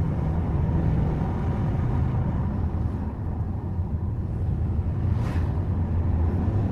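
Subaru Forester driving on a mountain road: a steady low rumble of engine and tyre noise.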